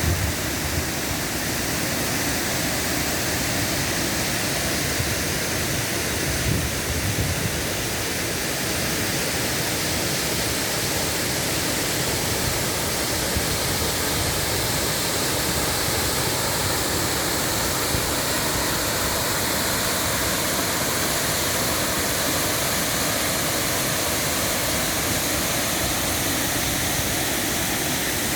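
A waterfall's steady rush of falling water, an even, unbroken noise.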